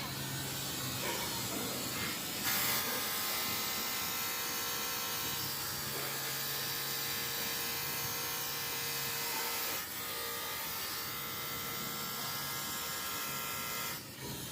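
A factory machine running with a steady high whine and hiss. It starts about two and a half seconds in, shifts briefly near ten seconds, and cuts off just before the end.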